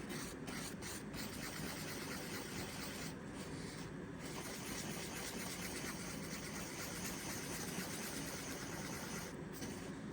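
Steady scraping and rubbing of a tool stirring two-part JB Weld epoxy and hardener together, with a few brief pauses; it is being mixed until the two parts turn an even gray.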